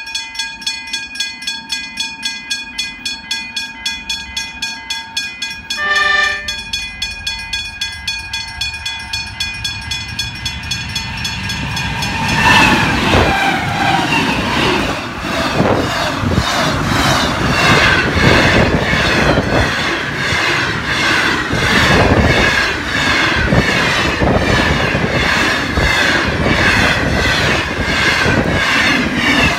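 Level crossing bells ringing quickly and steadily, with a short blast from the approaching diesel freight train's horn about six seconds in. About twelve seconds in, the locomotive reaches the crossing and the sound turns to a loud engine and wheel rumble, followed by the steady clickety-clack of container wagons rolling past over the rail joints.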